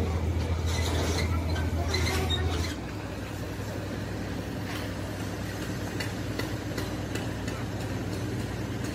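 A machine running with a steady low hum that drops suddenly to a quieter level about a third of the way in, with scattered faint clicks and knocks.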